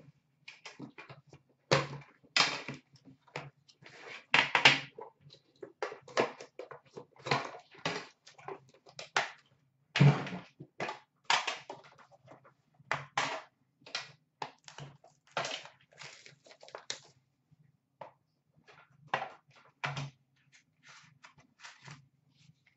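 Plastic shrink-wrap crinkling and cardboard packaging rustling and knocking as a sealed box of hockey cards is torn open and its inner box unpacked. The sound is an irregular string of short crackles and taps, a few sharper knocks among them.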